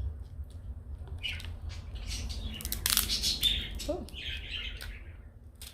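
Pet bird squawking and chirping in short, repeated calls, with a few sharp clicks around the middle.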